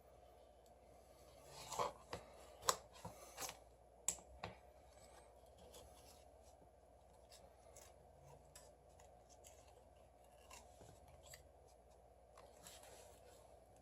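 Faint scraping and clicking of a thin pry tool worked in under a phone's glass, cutting through the softened adhesive. A run of sharp clicks and taps comes in the first few seconds, then only scattered faint ticks.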